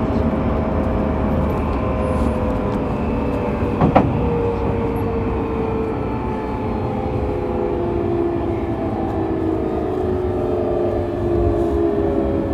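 Toyo GTO-VVVF inverter and traction motors of a Tokyu 1000 series train, heard from inside the car directly above the motor: several whining tones slowly falling in pitch as the train slows under electric braking, over steady wheel and rail rumble. One sharp clack comes about four seconds in.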